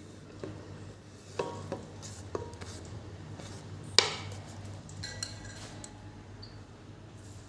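Kitchen dishes and utensils being handled, giving several separate clinks and knocks, some ringing briefly, with the sharpest clink about four seconds in. A steady low hum runs underneath.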